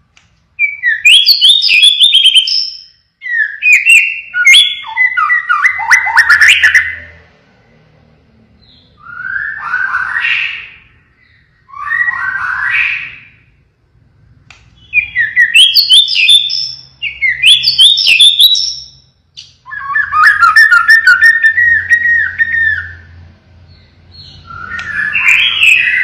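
White-rumped shama (murai batu, pied 'blorok' form) singing at full volume: about eight loud phrases of fast trills and slurred whistles, each a few seconds long, with short pauses between.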